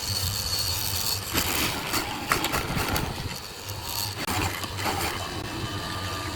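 A motor-driven workshop machine running with a steady low hum and a hiss, with a few short knocks.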